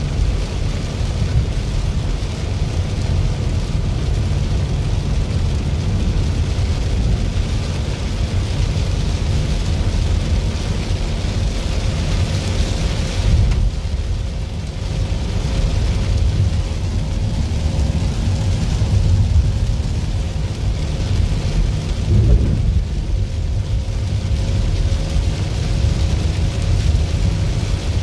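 Rainstorm: a steady wash of heavy rain noise over a continuous deep rumble, with a brief extra low thump about three quarters of the way through.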